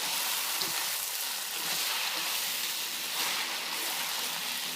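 Beef chow fun (flat rice noodles and beef) frying in a hot wok with sesame oil just added: a steady sizzle.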